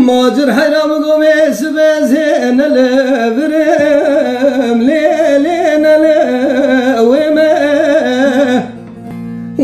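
Music: a voice singing a long, wavering, ornamented folk-style melody over a steady low drone. The voice breaks off briefly about a second before the end, then comes back in.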